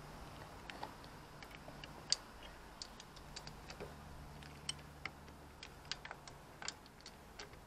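Faint, irregular metallic clicks of a socket wrench working on the crankcase cover bolts of a Zontes Tiger 125cc motorcycle as the bolts are loosened.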